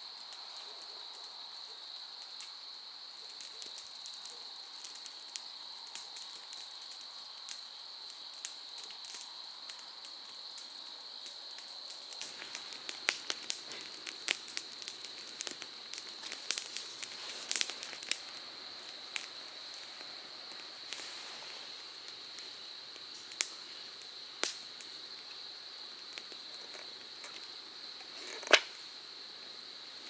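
Steady high insect chirring, with scattered sharp crackles and clicks over it. The clicks are thickest in the middle, and one loud snap comes near the end.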